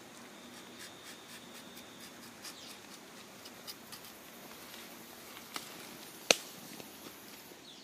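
Hornbill rubber tapping knife shaving a thin strip of bark along the tapping cut of a rubber tree: faint scratchy scraping with small ticks. A single sharp click comes about six seconds in.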